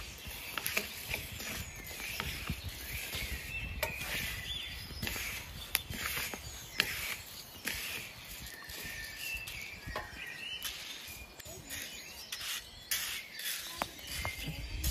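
Wooden spatulas stirring and scraping whole wheat grains as they toast in a wide black metal pan over charcoal: a dry rustle of shifting grain with irregular clicks and knocks of wood against the pan.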